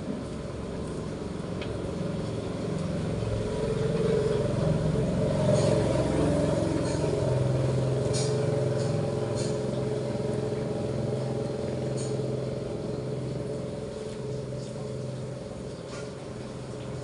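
A motor vehicle's engine running close by. It builds up, loudest about five seconds in, then settles into a steady low hum that slowly fades, with a few light clicks over it.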